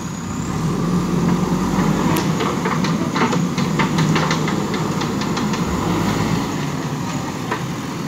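JCB backhoe loader's diesel engine running as the machine drives and turns across a dirt site, getting louder about half a second in and easing off near the end. A quick run of knocks and rattles comes in the middle.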